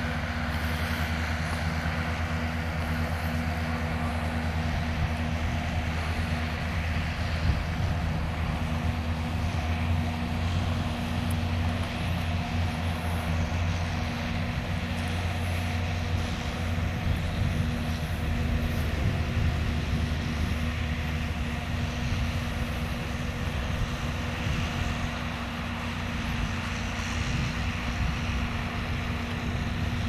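Farm machinery engine running steadily at constant speed: the tractor and tomato harvester at work. It is a continuous low hum with a mechanical rush over it.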